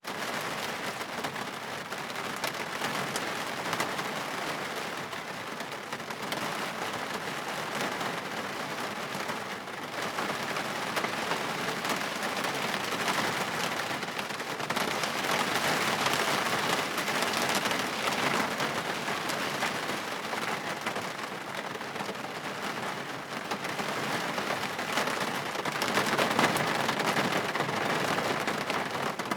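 Heavy rain pouring onto a car windshield: a dense, steady patter of drops on the glass, swelling slightly in intensity now and then.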